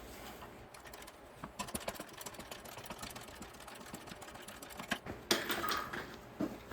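Light, irregular clicking and rattling of metal axle parts being handled and worked, with a louder, busier patch of handling noise about five seconds in.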